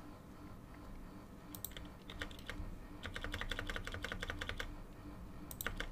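Typing on a computer keyboard: a few separate keystrokes, then a quick run of keys from about three seconds in, and a couple more near the end.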